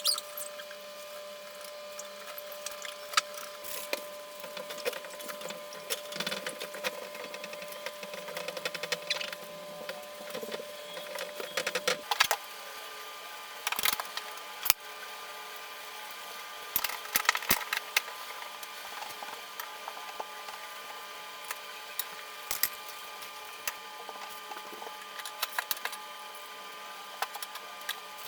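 Scattered clicks, taps and knocks of objects being picked up, moved and set down while tidying a room, over a steady hum. The hum's pitch changes suddenly about twelve seconds in.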